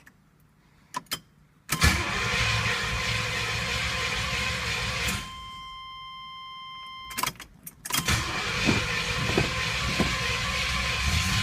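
Starter cranking the 1981 Pontiac Turbo Trans Am's Turbo 301 V8 without it catching: two cranking attempts, the first about 2 s in and lasting some three seconds, the second beginning about 8 s in, with clicks and a steady high tone in the pause between. A no-start condition, which the owner traced to a faulty Electronic Spark Controller.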